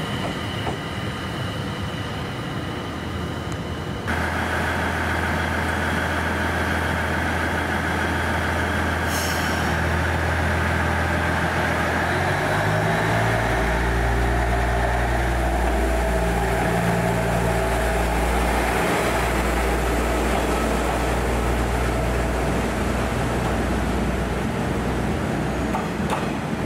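Train sounds at close range: a steady low drone that steps in pitch about twelve seconds in, with a short hiss of air about nine seconds in.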